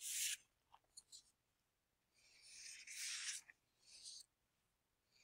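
Faint rustling and scratching close to the microphone, in a few short spells with pauses between them.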